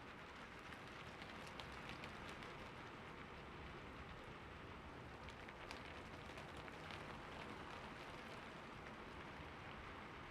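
Rain falling steadily on a rooftop: an even hiss with scattered sharper drop taps.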